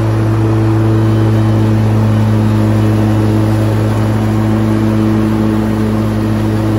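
Toro Z Master Professional 6000 zero-turn mower running with its cutting deck engaged while mowing through tall weeds and grass: a loud, steady engine drone and deck hum.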